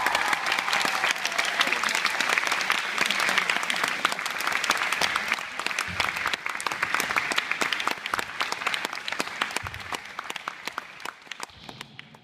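Audience of schoolchildren applauding, the clapping thinning out and dying away over the last few seconds.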